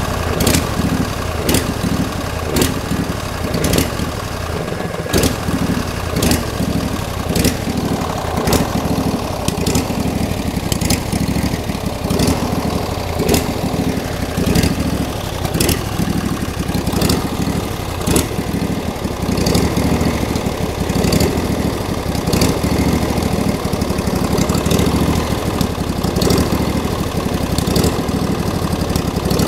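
A freshly rebuilt Briggs & Stratton Intek I/C 20 HP V-twin engine running steadily at idle on its first test run. Sharp clicks sound over the running about once a second.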